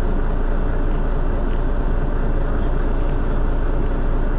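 Mercedes-Benz Citaro city bus engine idling while the bus stands at a stop, a steady low engine noise with no change in pitch.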